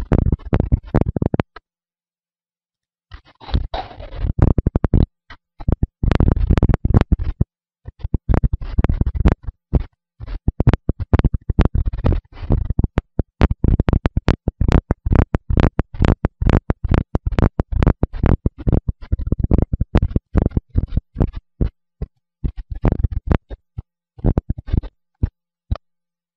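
Microphone pressed against the chest, giving loud, rapid, irregular crackling and scraping with low thumps mixed in as it rubs on skin or clothing. The sound cuts out completely for about a second and a half near the start and again just before the end.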